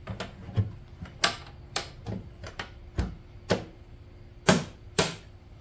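Irregular sharp metallic clicks and knocks, about ten in all, from hands working the metal carry handles and lid of a Bambu Lab Smoke Purifier's all-metal housing. The loudest pair comes near the end.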